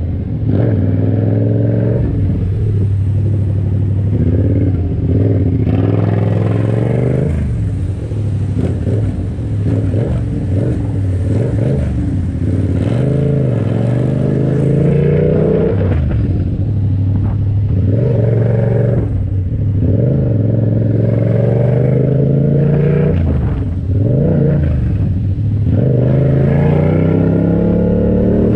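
Yamaha MT-series motorcycle engine, heard from the rider's position, accelerating in repeated bursts: its pitch climbs as the throttle opens, then drops back, again and again every few seconds.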